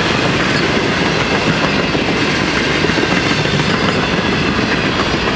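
Boxcars and covered hopper cars of a Florida East Coast Railway freight train rolling past: steel wheels running on the rails, making a steady, loud rolling noise.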